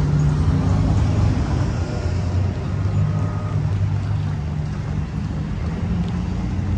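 Low, steady drone of a passenger train's diesel locomotives running as the train pulls away, with a hiss over it.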